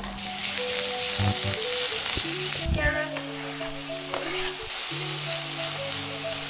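Chopped onion sizzling steadily in hot olive oil in a pan, just after being tipped in; the sizzle is strongest for the first few seconds.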